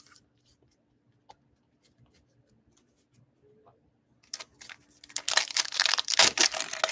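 Foil wrapper of a Topps baseball card pack being torn open and crinkled in the hands. It starts about four seconds in, after a few faint clicks, as a dense, loud crackle.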